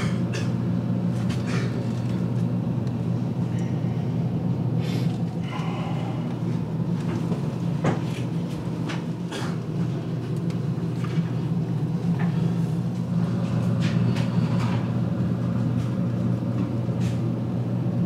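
A steady low machine hum, with scattered light clicks and knocks of things being handled.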